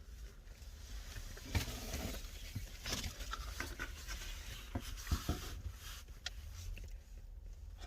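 Chewing and mouth noises of a person eating pizza, with scattered small clicks and soft smacks.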